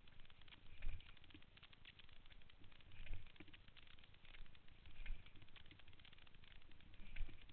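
Muffled ride noise from a camera mounted on a dirt bike on a gravel trail: a constant crackling rattle over a low rumble, with a heavier low thump every two seconds or so.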